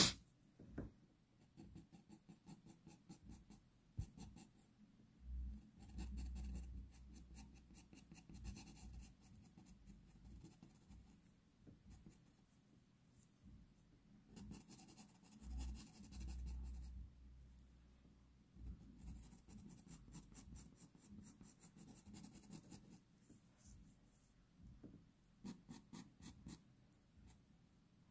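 Pastel pencil scratching across textured pastel paper in runs of short, quick strokes, pausing now and then. A sharp click right at the start, and two brief low rumbles about six and sixteen seconds in.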